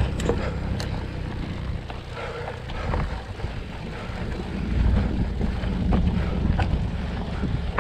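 Mountain bike rolling over a rocky dirt trail: wind buffeting the microphone over a low tyre rumble, with scattered sharp clicks and rattles from the bike over rocks. The rumble grows louder about five seconds in.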